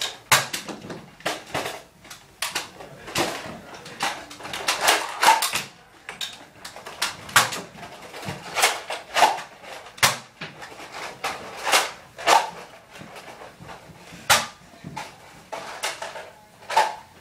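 A long irregular string of sharp clicks and knocks, some of them louder and fuller, several in quick clusters.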